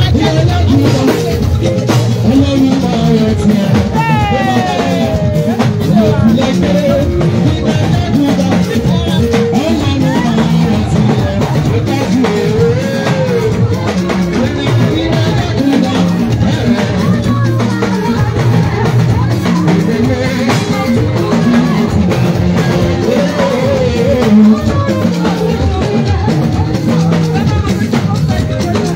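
Live band music played loud through loudspeakers: drums keep a steady beat under a woman singing into a microphone.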